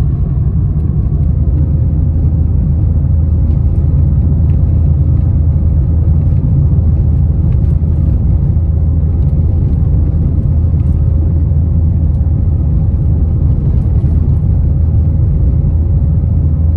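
Steady low rumble of a car on the move, heard from inside the cabin, with a faint steady hum and a few light ticks over it.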